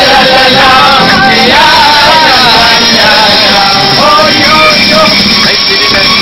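Live Hasidic song: a man singing into a handheld microphone over electric keyboard accompaniment, loud.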